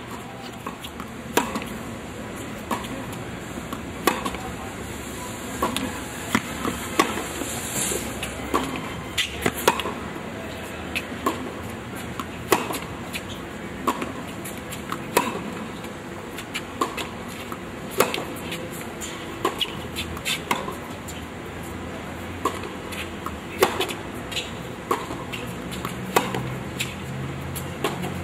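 Tennis balls being hit back and forth in a rally on a hard court: sharp pops of racket strikes and ball bounces, about one every second and a half. A low hum comes in near the end.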